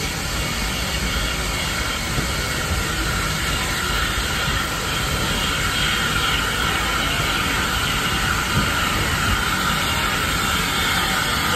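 Hudswell Clarke saddle-tank steam locomotive rolling slowly into the station with its train of carriages: a steady hiss over a low rumble of wheels on the rails.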